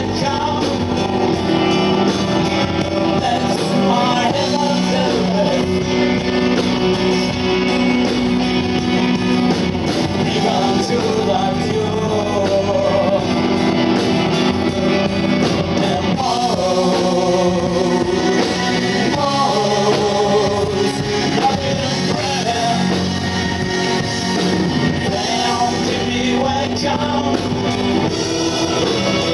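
Live rock band playing through a PA: electric and acoustic guitars, bass guitar and keyboard, with a man's voice singing in places.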